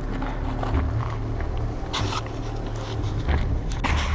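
Footsteps through a field and the rustle of clothing and gear against a body-worn camera over a steady low rumble, with louder scuffs about two seconds in and again near the end.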